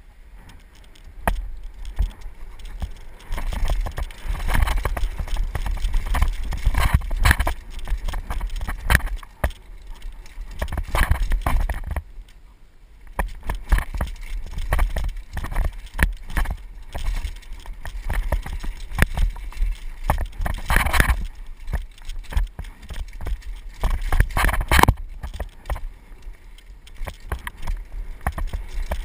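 Mountain bike clattering and rattling down a rough dirt trail at speed: tyres on dirt, the bike's frame and chain rattling with sharp knocks over bumps, over a constant low rumble. It eases off briefly about halfway, with loud clatters later on.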